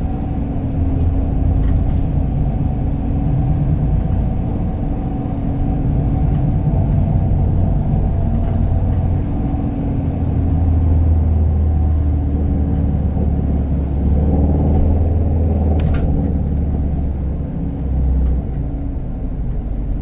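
Inside a moving city bus: a steady low rumble of the engine and road.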